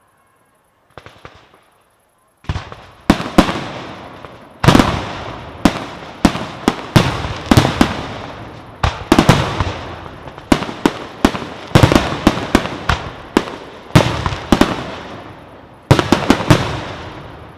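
Fireworks display: aerial shells bursting in quick succession, loud sharp bangs several a second, each trailing off in a rolling echo. A few faint pops come first, about a second in, before the barrage starts.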